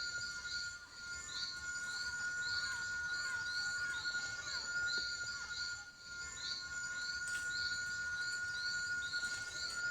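Amazon rainforest animal chorus: a steady high-pitched drone under a rhythmic chirp that repeats about twice a second. A few seconds in, a run of short falling whistled notes sounds from a bird.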